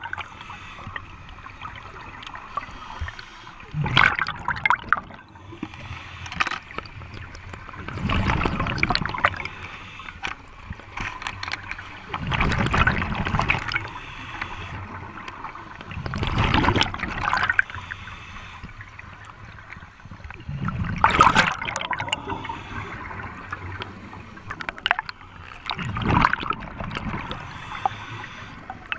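Scuba regulator breathing underwater: a bubbling rush of exhaled air every four seconds or so, with a quieter hiss between breaths.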